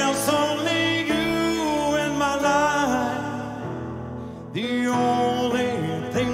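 A man with a deep, raspy voice sings a love ballad into a microphone over band accompaniment, with a new phrase starting about four and a half seconds in.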